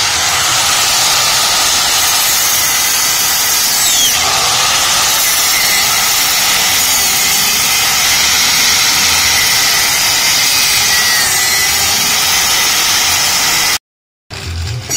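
Angle grinder with a cutting disc running under load, cutting through steel: a loud, steady grinding noise with a faint whine, which cuts off suddenly near the end.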